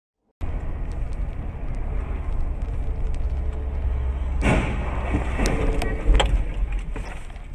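Steady road rumble of a moving car heard from inside it, then about halfway through a car-to-car collision just ahead: a sudden crash followed by several sharp bangs and clatter of flying debris, loudest about a second and a half after the first hit.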